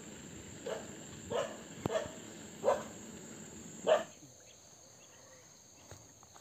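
A dog barking in short single barks, about one a second, stopping about four seconds in.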